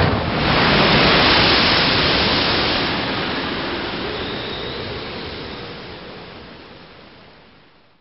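Rough, stormy sea: a loud rushing roar of surf that slowly fades out to silence near the end.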